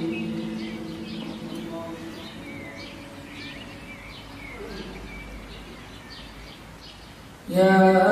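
Small birds chirping over and over in short, quick downward-sweeping calls, over a steady ambient music drone that fades away during the first couple of seconds. Near the end a loud, held chanting voice cuts in suddenly.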